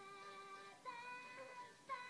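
A children's song playing faintly through a tablet's small speaker: a high sung melody of long held notes, moving to a new note about once a second.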